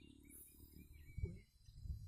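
Faint outdoor ambience with scattered small chirps of birds or insects, and two dull low thumps a little past a second in and near the end.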